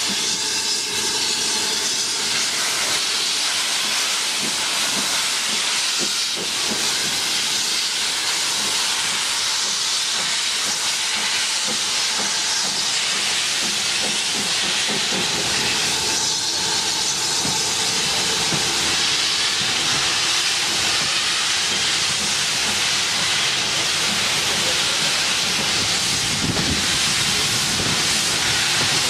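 Steady hiss of steam from a passing steam locomotive, with the sound of its train of coaches running past.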